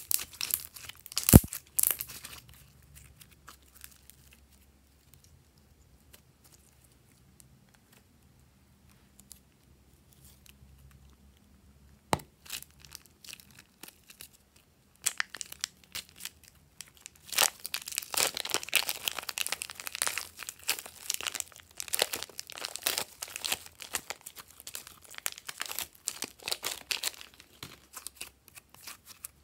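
Glossy slime being squeezed and kneaded by hand, with sticky crackling and popping. A few sharp pops come in the first couple of seconds, it goes quiet for a while, and dense crackling fills the second half.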